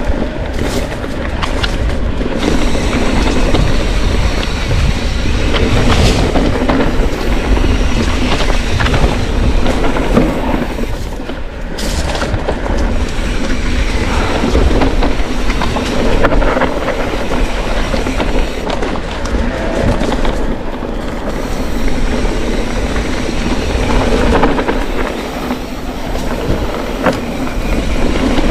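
Mountain bike rolling fast down a rough dirt trail: steady tyre noise over stones and ruts with the bike clattering and rattling throughout.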